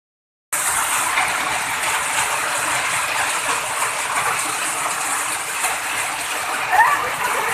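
Steady rushing of flowing water. Near the end come a couple of short high sliding calls.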